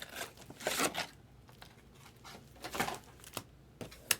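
Trading-card packaging being handled: a series of short crinkling, rustling noises from wrap and cardboard, with a pause near the middle.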